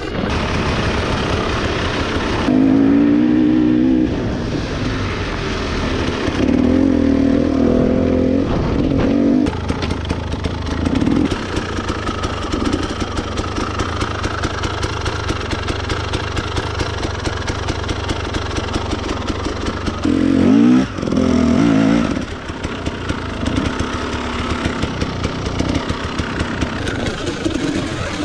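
KTM EXC 250 enduro dirt bike engine running while being ridden, the throttle blipped and held in uneven bursts. It revs up loudly about three seconds in, again around seven seconds, and once more near the end.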